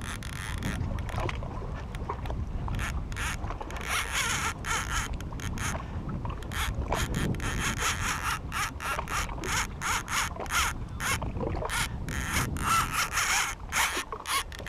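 A baitcasting reel being cranked to retrieve line, its gears giving a choppy whirring rasp that comes and goes, over a low rumble of wind on the microphone.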